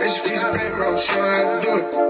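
Hip hop track with rapping playing loud through a pickup truck's aftermarket stereo, heard inside the cab: a four-channel amp and subwoofers, the subs not getting full power from low batteries. Deep bass comes in about half a second in.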